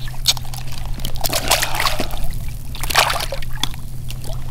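Shallow water splashing and sloshing in several irregular bursts, the loudest about three seconds in, over a steady low rumble.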